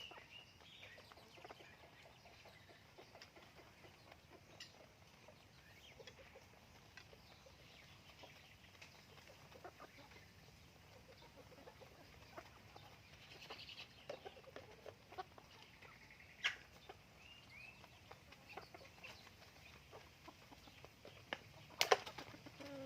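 Chickens clucking softly while feeding, with scattered short calls and small ticks. There are two sharp knocks, one about sixteen seconds in and a louder one near the end.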